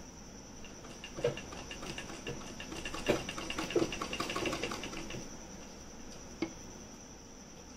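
Domestic sewing machine stitching: a quick, even run of needle-stroke ticks starts about a second in and stops about five seconds in, with a few louder knocks during the run and one more knock shortly after it.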